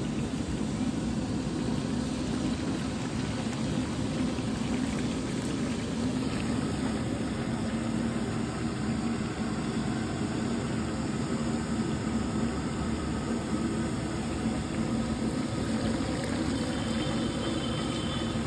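Potato slices deep-frying in a large wok of hot oil: a steady bubbling sizzle over a low steady hum.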